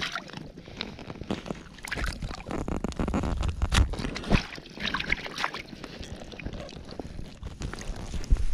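Handling noises around a rainbow trout in a rubber-mesh landing net: irregular clicks, knocks and small water splashes, with wind buffeting the microphone in low thumps.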